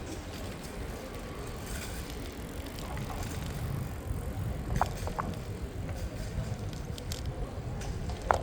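Bicycle being ridden along a city street: a steady low rumble of the tyres on the road. A few short sharp clicks come about five seconds in and once near the end.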